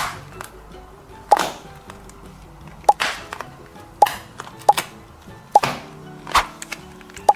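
A series of short, sharp pop-like clicks, roughly one a second, several of them followed by a brief swish, over soft background music.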